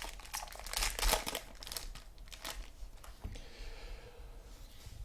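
Packaging wrapper crinkling and tearing as a sealed box of trading cards is opened by hand. The crackling is dense for the first couple of seconds, then thins to a few faint rustles.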